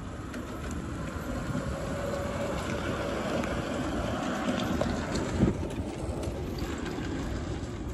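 Miniature-railway train, a small diesel-outline locomotive hauling riders on sit-astride cars, running past close by: a steady rumble of wheels on rail with a faint whine from the locomotive, growing louder as it passes and clicking over the rail joints, with a sharp knock about five seconds in. Wind rumbles on the microphone.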